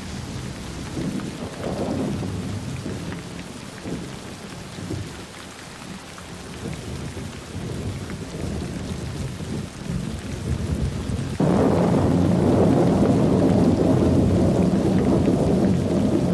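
Heavy rain with rolling thunder. About eleven seconds in, a much louder rumble of thunder starts abruptly and keeps going.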